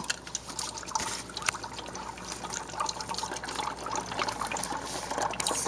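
Dry ice bubbling in a cup of soapy water: gas bubbling up through the liquid with a steady fizzing gurgle and scattered small pops as a head of soap foam rises.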